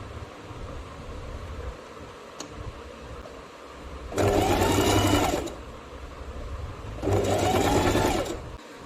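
Singer Heavy Duty sewing machine stitching a straight seam in two short runs a little over a second each, the motor speeding up and then slowing at each start and stop.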